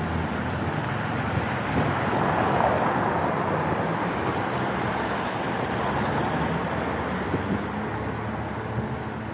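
Street traffic: motor vehicles passing on the road, a steady rush of engine and tyre noise that swells briefly about two to three seconds in.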